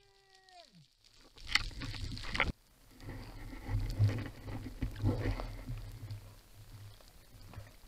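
Underwater water noise as a spearfisher handles a freshly speared leerfish close to the camera: rushing, sloshing water and bubbles in bursts, loudest from about one to two and a half seconds in, where it cuts off sharply, and again around four to five seconds, over a low rumble. In the first second a short muffled pitched sound slides down and stops.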